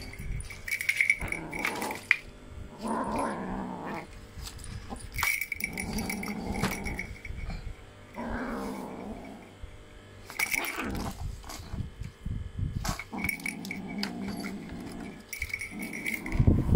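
Young ginger kitten growling, a string of low growls about a second each, again and again: an angry growl. Light clicks and rattles in between.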